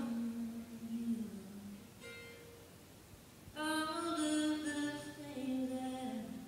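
A woman singing solo with long held notes, accompanying herself on acoustic guitar. One phrase trails off about two seconds in, a short phrase follows, and a longer phrase starts just past halfway.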